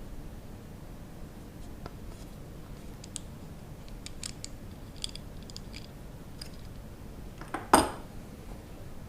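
Light metal clicks and clinks of a steel kitchen knife and sharpening gear being handled, with one much louder clank about three-quarters of the way through.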